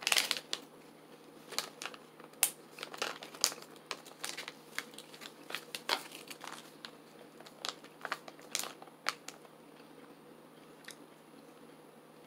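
Plastic resealable gum pouch being handled, crinkling in irregular bursts. The crinkling is loudest at the start, then comes in clusters and thins out after about nine seconds.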